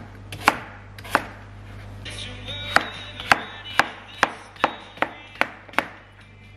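Chef's knife chopping sweet potato and courgette on a plastic chopping board: sharp knocks of the blade meeting the board, two spaced strokes at first, then a steady run of about two a second from a little under halfway in. Faint background music underneath.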